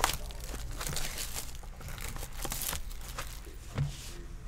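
Plastic shrink wrap being torn and crinkled off a sealed trading-card hobby box, a run of scratchy crackling with a sharp click at the start.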